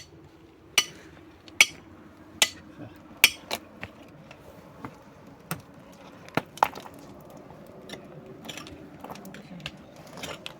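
A series of sharp knocks, about one every 0.8 seconds for the first few seconds, then fewer and more irregular, fading into small taps and clinks.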